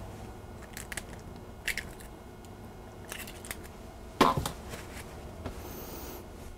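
An egg cracked open over a mound of crumbly biscotti dough on a wooden table, then bare hands working the dry, crumbly mixture. The sound is a few light clicks and soft crunches, with one louder knock just after four seconds in.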